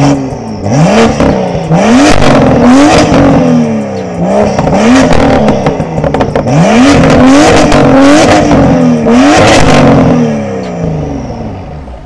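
BMW M2's turbocharged inline-six, breathing through an aftermarket catted downpipe with its exhaust valves open in Sport+, revved hard about eight times in quick blips. Sharp cracks come from the exhaust at the top of several blips, and the engine settles back toward idle near the end.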